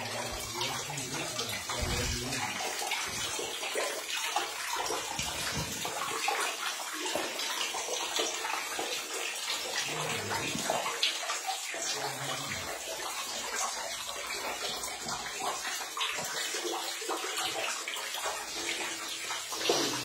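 Water splashing and sloshing steadily as a person wades through a flooded mine tunnel.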